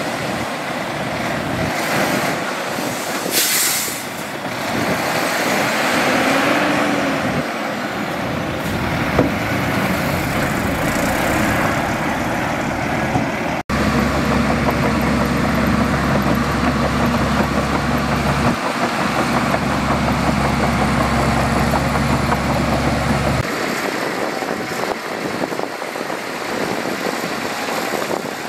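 Heavy diesel engines of dump trucks and a bulldozer working, with a short hiss of air about three seconds in. After an abrupt cut about halfway, a steady low engine drone runs on and then drops away a few seconds before the end.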